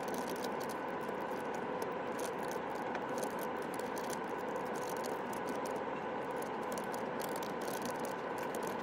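Scattered light clicks and rattling over a steady hum.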